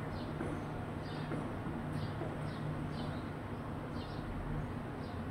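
House sparrows chirping: short, high, falling chirps repeated irregularly, over a steady low hum.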